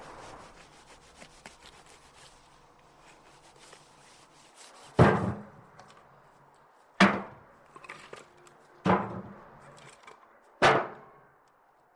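Split firewood being handled. Four loud wooden knocks come about two seconds apart, the first about five seconds in, after a stretch of faint clicking and rustling.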